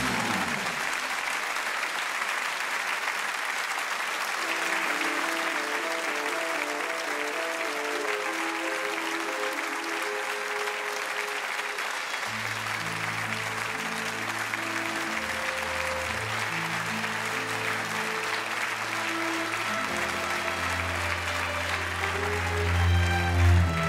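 Audience applauding steadily while music plays; a melody comes in a few seconds in, and a bass line joins about halfway through.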